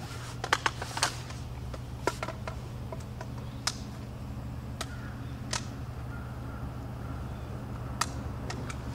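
A few short, sharp clicks and knocks, several close together about half a second to a second in, then single ones every second or two, over a steady low hum.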